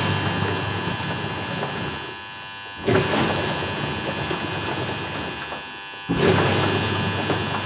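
Washing machine running with a grinding noise over a steady hum, surging abruptly about every three seconds and then slowly fading, twice in the span.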